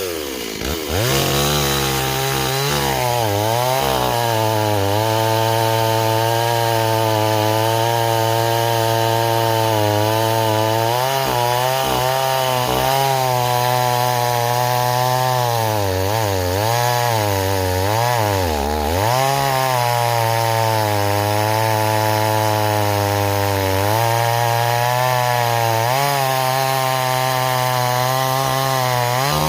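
Stihl 026 two-stroke chainsaw revved up and held at high throttle while cutting a log, its pitch dipping again and again as the chain bites in and bogs. The chain grabbing the wood is blamed on rakers filed too low, and the saw was running too rich.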